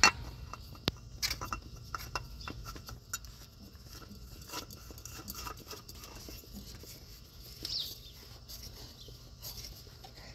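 Scattered small clicks and taps of a new oil filter being fitted by hand under a pickup's engine, the sharpest click right at the start and several more in the first few seconds, then fainter handling noises.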